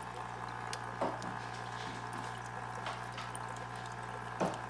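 Aquarium fish-room equipment running: a steady low hum with running, bubbling water from the tanks' pumps and air lines. Two short clicks cut through it, one about a second in and a louder one near the end.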